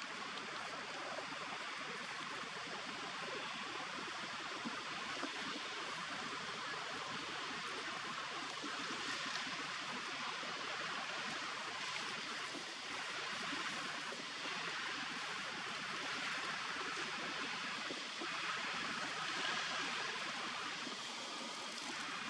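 Steady outdoor ambience: an even, unbroken hiss with no distinct calls or knocks.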